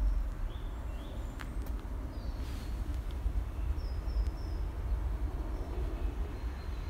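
A few short, high bird chirps over a steady low rumble, the chirps coming in small groups of two or three.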